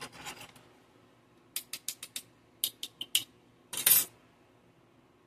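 Metal cup of a fake car cigarette lighter stash container being handled in the fingers. A short rattle at the start, then two quick runs of small sharp clicks, and a louder brief rattle about four seconds in.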